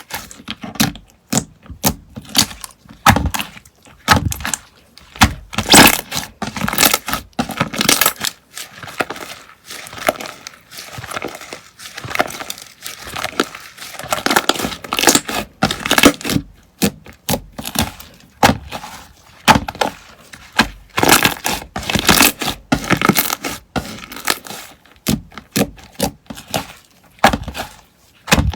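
Slime being handled and pressed, giving a dense, irregular run of crunching and crackling clicks and pops.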